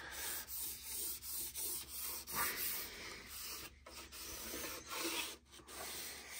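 Folded cloth rag rubbed back and forth over the wooden case of an amplifier, wiping on varnish: repeated rubbing strokes, about two a second.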